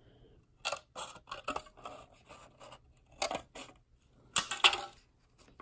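Scissors cutting through a thin plastic tray: a series of sharp, irregular snips and crunches, the loudest a little past four seconds in.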